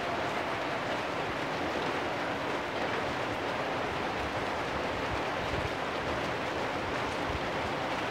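Steady rain falling on corrugated metal roofs, an even hiss of many drops with no single sound standing out.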